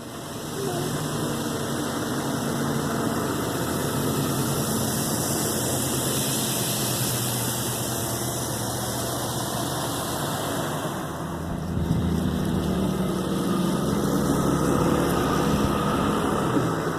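Vehicle engine running steadily, coming in just under a second in and growing louder about twelve seconds in.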